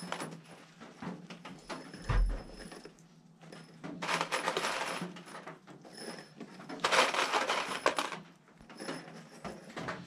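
Metal screws rattling and clinking in irregular bursts as handfuls are scooped from a plastic bin and dropped into a tool-belt pouch, loudest about seven seconds in. There is a dull thump about two seconds in.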